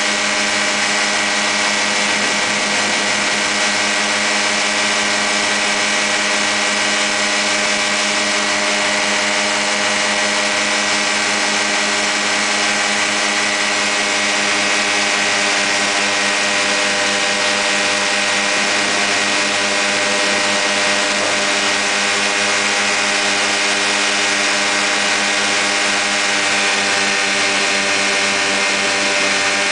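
Quicksilver MX ultralight's two-stroke engine and pusher propeller running steadily in flight, heard from the open pilot's seat with a constant rush of air.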